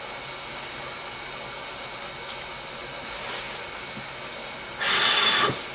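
Hot air rework station blowing with a steady hiss, with a louder gust of air lasting under a second about five seconds in.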